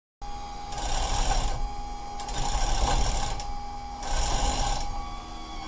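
Manual chain hoist being worked to move a Yamaha V-Max 150 outboard on its tilt/trim, its chain rattling through in repeated pulls, three or four strokes, over a steady whine. The motor is being cycled up and down to bleed air from the tilt/trim hydraulics.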